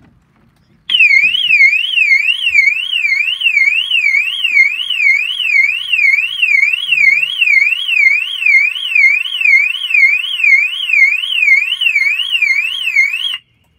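Sigma vehicle alarm siren on a Land Rover Defender 90, set off by the vehicle being opened while the system is armed. It is a loud electronic warble sweeping up and down about twice a second. It starts about a second in and cuts off suddenly just before the end, when it is disarmed.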